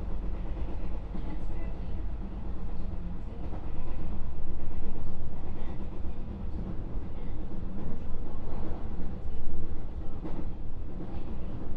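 Running sound inside a JR West 221 series electric train's motor car: a steady low rumble of wheels on rails that swells and eases.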